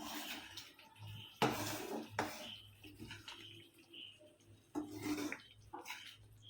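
A spoon clattering and scraping against a cooking pan of simmering gravy, in several separate bursts, over a faint steady low hum.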